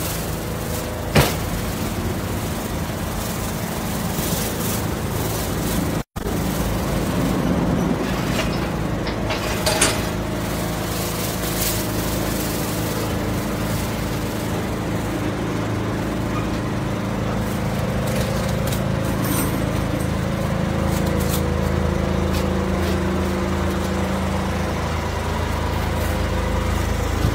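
A vehicle engine idling steadily, its hum held at a few even low tones, with plastic bubble wrap rustling and crinkling as it is handled now and then.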